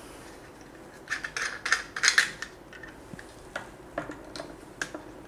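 Hard plastic parts of a lazy-neck phone holder clicking and knocking as the phone clamp is handled and fitted to the end of its flexible arm: a quick run of clicks about a second in, then a few scattered ones.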